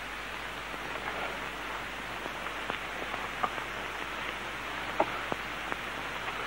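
Steady low hiss with a few faint scattered clicks and rustles.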